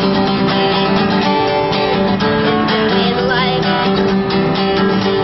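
Acoustic guitar strummed steadily.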